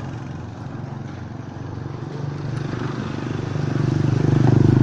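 Small motorbike engine running, its steady low hum growing louder as it comes closer and loudest near the end.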